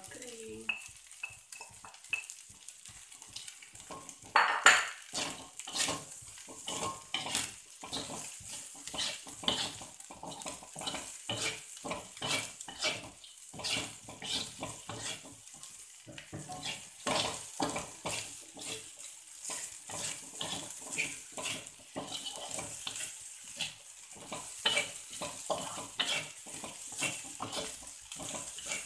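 Wooden spatula scraping and knocking against a metal wok as fried rice is stirred and tossed, a stroke every second or so, the loudest about four and a half seconds in. A steady frying sizzle runs underneath.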